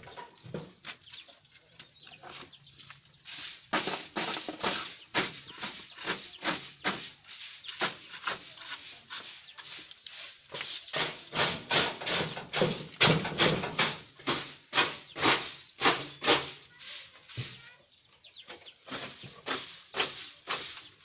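Stiff stick broom sweeping a floor of droppings and straw, in quick scratchy strokes at about two a second, with a short pause near the end.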